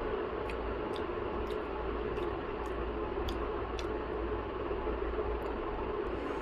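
Steady background hum and hiss, with about seven faint, light clicks spread over the first four seconds.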